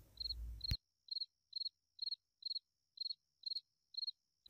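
Crickets chirping at night: short, evenly repeated high chirps, about two a second, with a faint steady high tone behind them.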